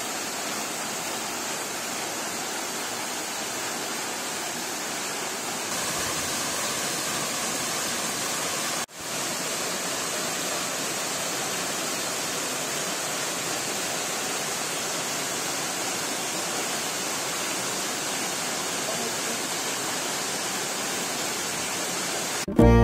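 Waterfall pouring into a rock pool: a steady rush of falling water. It cuts out for a moment about nine seconds in, then resumes.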